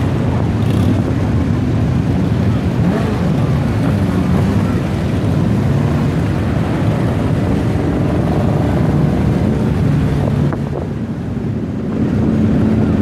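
Many motorcycle engines running together, with wind buffeting the microphone. The engine noise dips briefly about ten and a half seconds in, then picks up again.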